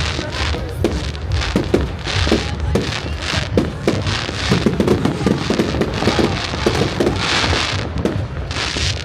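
Fireworks display at full barrage: many sharp bangs in quick succession from bursting shells over continuous crackling.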